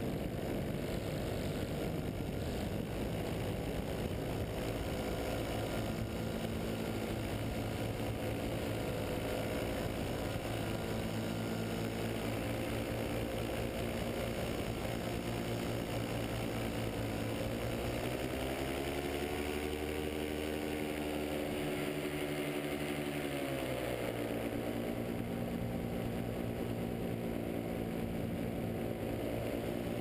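Paramotor engine and propeller running steadily in flight. The engine pitch rises about eighteen seconds in, holds for several seconds, then drops back.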